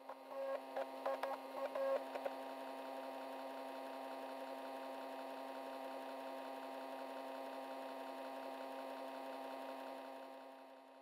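A steady electronic drone of several held tones, with a few short beeping notes in the first two seconds. It fades out near the end.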